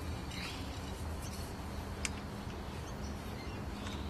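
Soft crumbling and rustling of Dynamic Lifter chicken-manure fertiliser pellets being crushed in gloved hands, with one sharp click about two seconds in.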